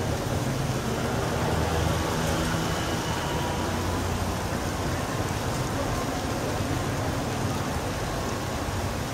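Steady rain hiss over a wet street, with a minivan's engine running as it drives slowly along the street below.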